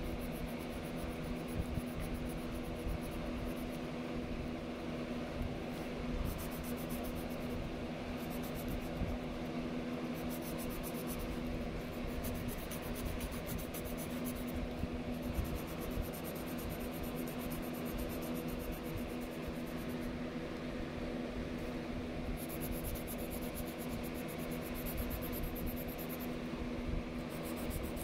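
Mechanical pencil graphite scratching on sketchbook paper in stretches of shading strokes that start and stop every second or two, over a steady background hum like a fan or air conditioner.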